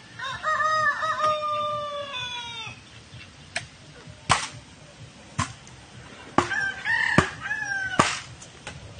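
A rooster crowing twice, each a long drawn-out crow that falls in pitch at the end, the first about two and a half seconds long and the second near the end. Several sharp knocks sound between the crows.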